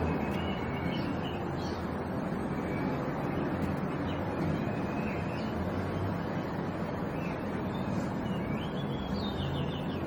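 Steady rumble and hiss with a low hum, with short bird calls chirping over it several times, in a cluster about a second in and again near the end.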